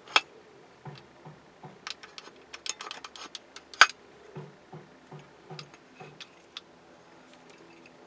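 Irregular light clicks and clinks of small metal distributor parts and hand tools being handled during reassembly, with two sharper knocks, one about a quarter second in and one just before four seconds.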